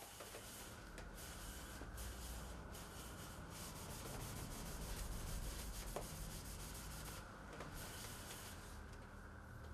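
Paper towel rubbing finish onto a wooden box turning on a lathe, over the lathe's steady low hum, with a few faint clicks.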